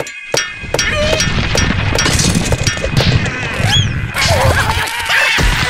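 Cartoon slapstick fight sound effects: a dense flurry of hits and thumps with short squeaky cartoon-voice cries as two animated larvae scuffle and tumble together. It starts about half a second in and runs on without a break.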